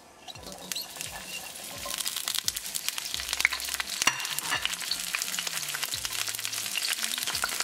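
Asparagus spears sizzling in hot vegetable oil in a nonstick kadai (wok). The sizzle builds over the first couple of seconds as the spears land in the oil, then holds steady with many small crackling pops.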